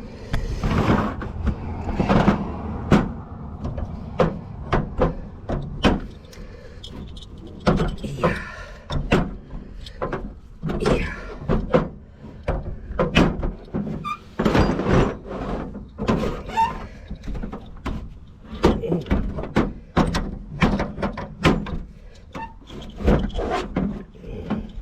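Irregular metal knocks and clanks, about one to two a second, as tools and brass backflow-preventer fittings are handled during assembly, over a steady low rumble.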